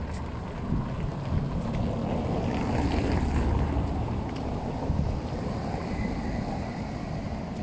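City street ambience heard while walking: footsteps on brick paving over a steady low rumble of traffic that swells about three seconds in.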